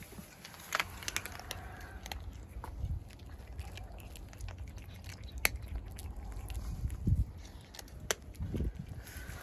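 Two cats chewing dry kibble: irregular crisp crunches and clicks, a few sharper ones standing out, over a low rumble.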